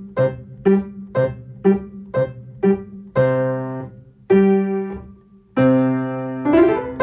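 Piano playing a simple tune: short detached chords about two a second, then three longer held chords, and a quick upward run near the end that leads into a final ringing chord.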